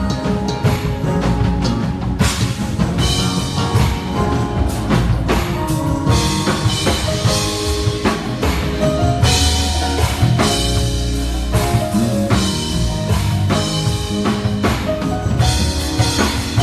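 Live band playing an instrumental passage: drum kit with bass drum and snare, electric bass and keyboards.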